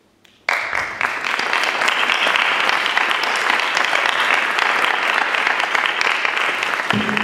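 Audience and panel applause after a talk. It breaks out suddenly about half a second in, holds steady, and begins to die away near the end.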